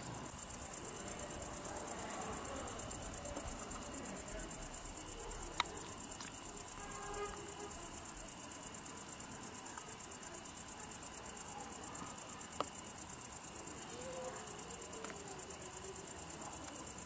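Crickets chirping in a rapid, continuous high-pitched trill.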